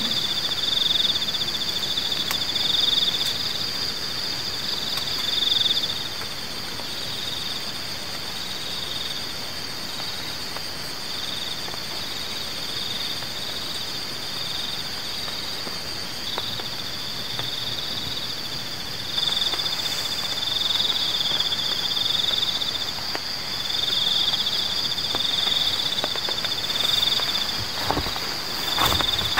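Night chorus of insects and frogs: steady high pulsing trills over a continuous hiss. A couple of sharp knocks come near the end.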